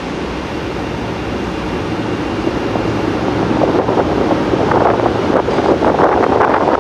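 Metro train approaching through a tunnel: a rushing rumble of wheels on rail and air pushed ahead of it, growing steadily louder, with a dense clattering coming in about four seconds in.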